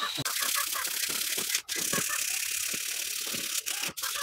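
Coarse 80-grit sandpaper rubbed by hand over the rusty chrome-plated steel tubes of a Yamaha RX100 rear carrier, a steady scratchy hiss as the rust is taken off. The hiss breaks off for a moment twice.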